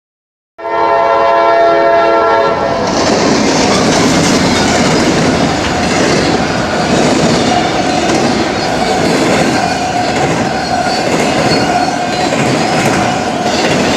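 A diesel freight locomotive's horn sounding a chord for about two seconds, then the train running by with a steady loud rumble and wheels clattering over the rails.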